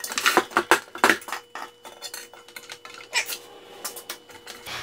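Metal clinking and knocking of tools against the cast-iron drill press as it is set up as a lathe: a quick run of sharp clinks in the first second and a half, then a few scattered knocks. A faint steady tone underneath stops near the end.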